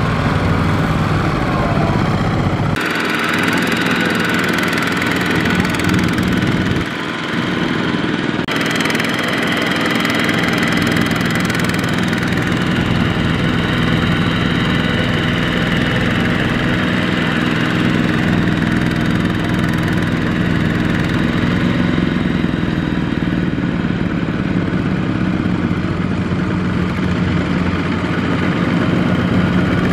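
Kubota RT120 walking tractor's single-cylinder diesel engine running steadily as it pulls a loaded rice trailer through mud. The engine sound changes abruptly about 3 s and 8 s in.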